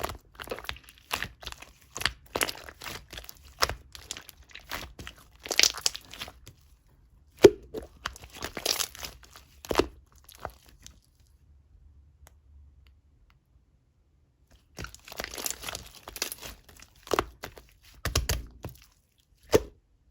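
Clear slime being played with, giving a run of sharp pops and crackles. A pause of about four seconds falls in the middle, then another cluster of pops and a last single pop near the end.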